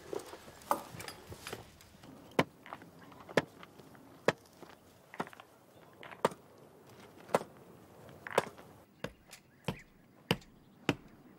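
Hammer strikes on wood, single sharp knocks at about one a second that come a little quicker near the end: a plank being nailed up across a door.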